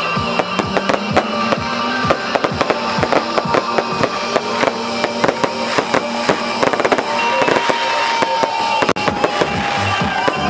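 Fireworks popping and crackling in quick succession, mixed with background music.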